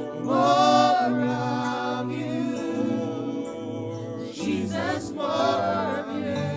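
Gospel-style worship music: wordless singing voices rising and falling over steady held chords, with a louder vocal swell about half a second in and again near the end.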